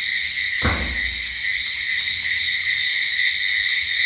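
Steady, high-pitched chorus of insects trilling continuously, with one soft low thump about half a second in.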